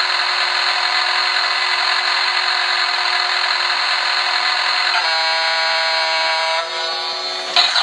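Bump-and-go toy cruise ship playing its electronic sound effects: a harsh, hissing noise over a steady tone, broken by a horn-like blast from about five seconds in until nearly seven seconds, with a sharp click near the end.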